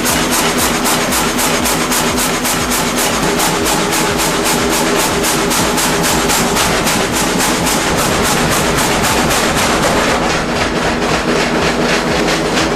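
Sawmill saw cutting a log with thin blades: a steady machine hum under a fast, even clatter of about five beats a second.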